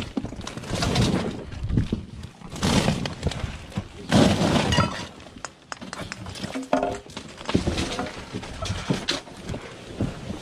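Large cardboard boxes being pulled open, bent and folded flat, an irregular rustle and scrape of cardboard with sharp knocks and clatter of loose items shifting.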